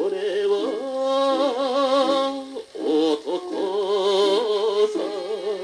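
Vinyl record of a 1959 Japanese popular song (kayōkyoku) playing on a turntable: a male singer holds long phrases with wide vibrato, with a short break between lines about two and a half seconds in.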